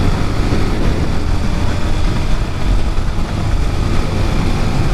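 Heavy wind buffeting the microphone over a Honda CRF230L's air-cooled single-cylinder engine running steadily as the bike rides along the road.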